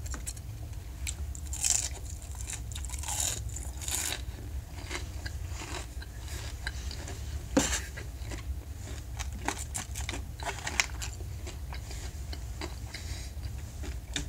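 Close-up chewing of a mouthful of breaded chicken katsu, with irregular crunches and wet mouth clicks, over a steady low hum.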